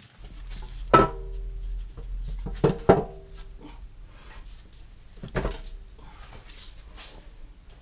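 Heavy cast-iron knee of a Bridgeport knee mill clunking against the column ways as it is wiggled to line up its bearing with the Z-axis screw shaft. There are four metallic knocks with a short ring: one about a second in, two in quick succession near three seconds, and one more past five seconds, over a low steady rumble.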